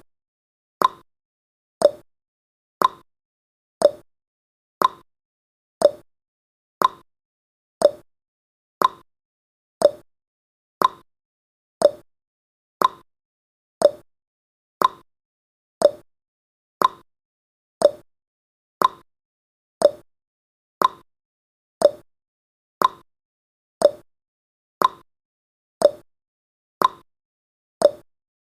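Countdown timer's ticking sound effect: one short tick every second, evenly spaced, with silence between ticks.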